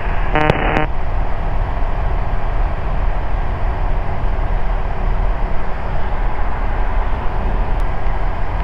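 Ikarus C42B microlight's engine and propeller droning steadily in cruise, with a low hum and wind rush, heard inside the cockpit.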